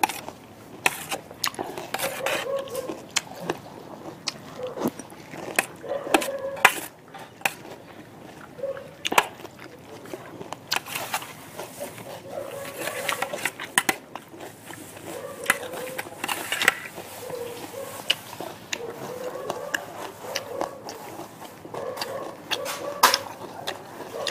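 Eating sounds: a metal spoon clinks and scrapes irregularly against a metal tray, with mouth sounds of slurping and chewing in between. Short pitched sounds are also heard at times.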